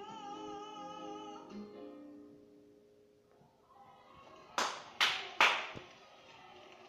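A woman's singing voice playing through a television holds a last note with vibrato, ending about a second and a half in. Near the end come three loud claps close by, about half a second apart.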